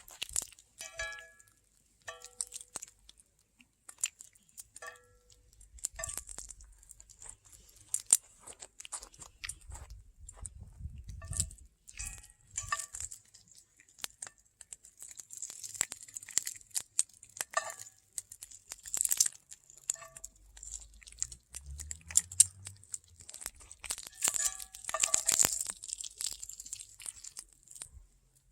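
Open wood cooking fire crackling, with many irregular sharp snaps and pops and short stretches of hiss.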